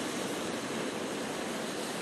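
Sea surf breaking against rocks: a steady wash of waves with no single crash standing out.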